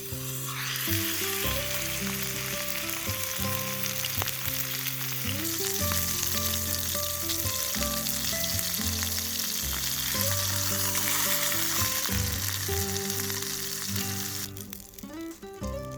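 Food sizzling and frying in a hot pan, starting about half a second in and dying away near the end, over background music.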